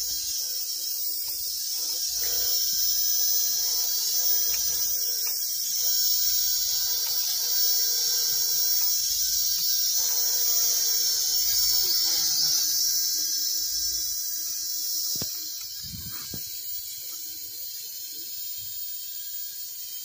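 Small toy quadcopter drone's motors and propellers giving a steady high-pitched whine as it hovers overhead, growing fainter about fifteen seconds in.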